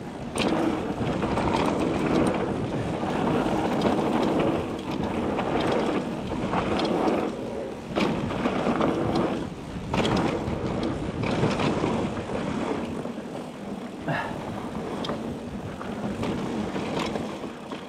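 A Nukeproof Mega 275 mountain bike ridden fast down a dirt jump trail: a continuous rush of tyres on dirt and riding noise that swells and dips, with a few sharp knocks and rattles from the bike.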